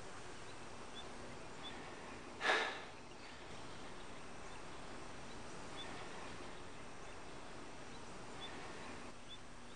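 Steady jungle ambience with a few faint, scattered bird chirps. About two and a half seconds in, a short sharp burst of noise, the loudest thing here, fades within half a second.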